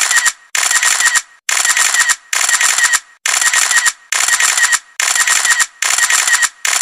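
A burst of rapid clicking, repeated about eight times, each burst under a second long with short silent gaps between, like a looped sound effect.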